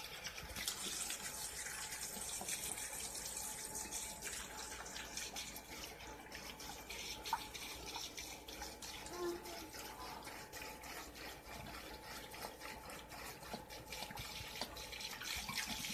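Vodka pouring in a steady stream from an upturned bottle into a cooler of sliced fruit, the liquid splashing onto the fruit below.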